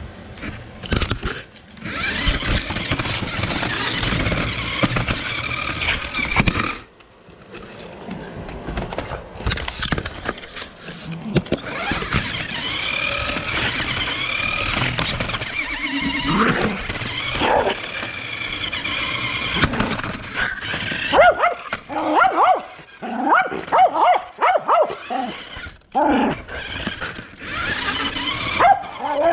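A small dog barking in short repeated bursts, most densely in the last third, over an RC car's motor whining and rising and falling in pitch as it drives across a hardwood floor.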